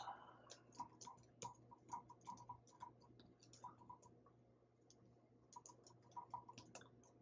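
Faint computer keyboard typing: quick, irregular keystrokes in two runs, with a pause of about a second past the middle.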